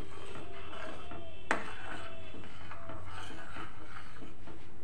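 A stainless steel ladle stirs milk being heated for kheer in a stainless steel pot, scraping over the pot's bottom in repeated strokes, each with a brief squeak. One sharp clink of the ladle against the pot comes about a second and a half in.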